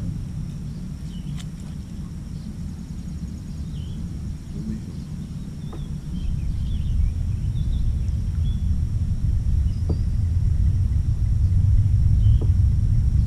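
Wind buffeting the microphone as a low rumble, growing stronger about six seconds in, with faint bird chirps and a few small clicks.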